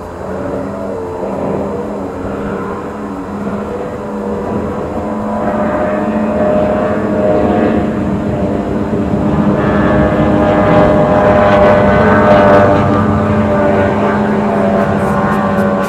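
Outboard engine of a racing catamaran running flat out at high speed, a steady engine note that grows louder as the boat comes closer, loudest about three-quarters of the way in.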